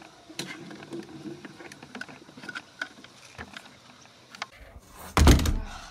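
Handling noise from a handheld phone camera being carried while walking, with scattered small clicks and rustles. Near the end comes a loud bump against the microphone.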